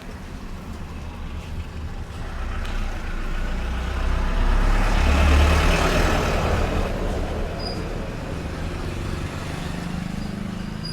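A heavy road vehicle passing by: a low rumble with road hiss that swells to its loudest about five seconds in, then fades away.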